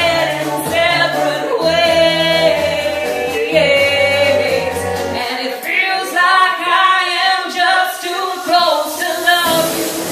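A woman singing solo into a microphone, with low sustained accompaniment notes under her voice that drop out about halfway through.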